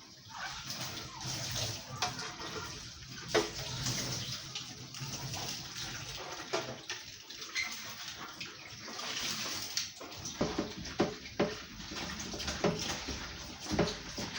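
Water running from a tap while removable fridge dishes are rinsed under it, with knocks and clatter of the dishes that come more often in the last few seconds.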